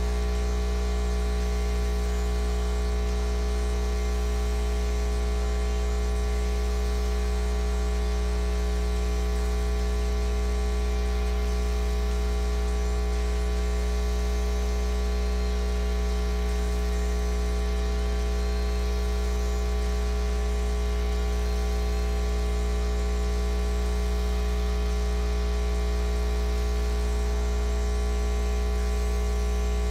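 Steady electrical mains hum and buzz over a faint hiss, unchanging, with no other sound.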